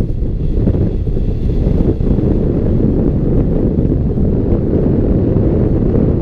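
Airflow buffeting the microphone of a camera mounted on a hang glider's wing in flight: a loud, steady low rumble of wind noise.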